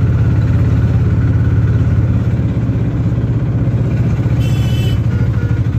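Small engine of an auto-rickshaw running steadily as it drives along, with a short high-pitched beep about four and a half seconds in.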